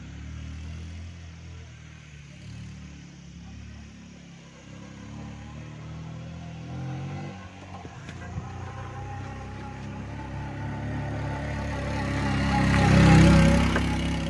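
Motorcycle engine running steadily under way, with wind and road noise. Near the end a louder swell of engine and rushing noise builds and then drops back.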